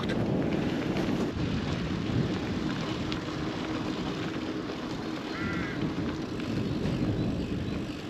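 Wind buffeting the microphone over the rolling noise of a touring bicycle on a paved cycle path, with a short chirp about five seconds in.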